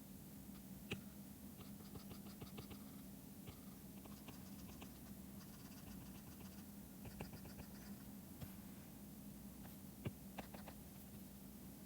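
Faint tapping and scratching of a digital stylus pen on a drawing tablet, in quick runs of small ticks with a few sharper single clicks.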